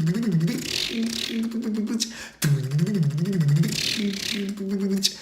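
A man's voice imitating an engine cranking without catching: two rattling, wavering phrases of about two and a half seconds each, with a brief break between them.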